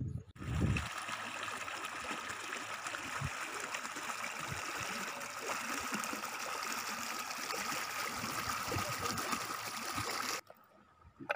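Shallow stream water flowing quickly over grassy ground and around rocks, a steady rushing that stops abruptly near the end.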